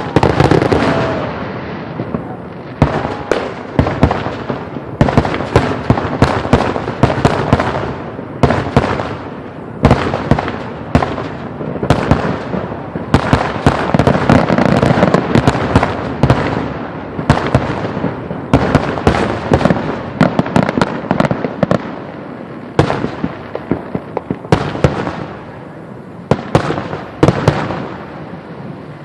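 Fireworks going off in a dense barrage of rapid bangs and crackling, thinning out and fading in the last few seconds.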